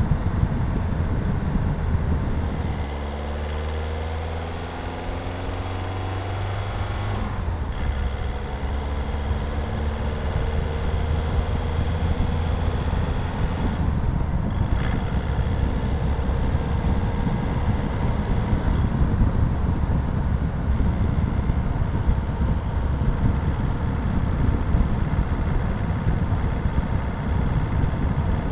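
Skoda Octavia's 1.6 TDI (CAYC) four-cylinder diesel engine running under load, heard from under the bonnet as a steady drone. Its pitch rises from about three seconds in as the car accelerates, drops briefly near seven seconds, then climbs again.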